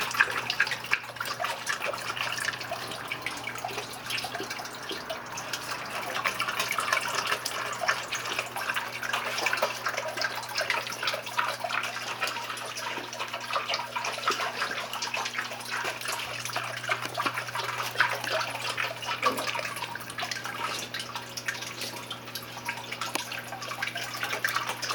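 Water from a homemade dog drinking fountain, a recycled drinking-fountain top fed by a small submersible pump, splashing and trickling back into its plastic reservoir box, with a steady low hum underneath.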